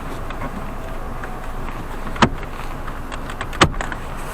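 Two sharp plastic snaps about a second and a half apart as the dashboard trim panel's clips are pressed into place, over a steady background hum.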